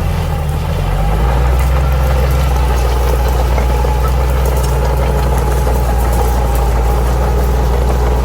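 Bulldozer's diesel engine running steadily with a deep hum, growing a little louder about a second in.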